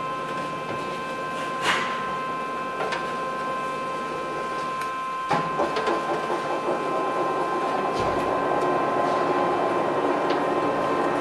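Blanchard Model 20D rotary surface grinder running: the segmented wheel head grinds on the rotating magnetic chuck with a steady whine over a rough grinding rush. About five seconds in, the grinding noise gets louder and rougher.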